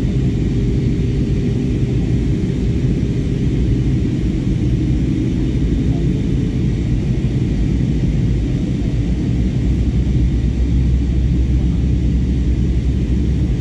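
Steady low rumble of a jet airliner's engines and rushing air, heard from inside the passenger cabin in flight.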